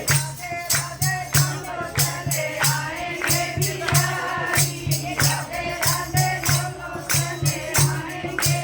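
Devotional kirtan: a group of voices singing together over a steady beat of a hand drum and jingling percussion, about three strokes a second.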